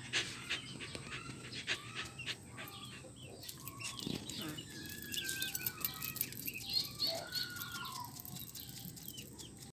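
Faint yard sounds of chickens clucking and birds calling, with a few short falling calls after about five seconds in, over scattered clicks and rustles.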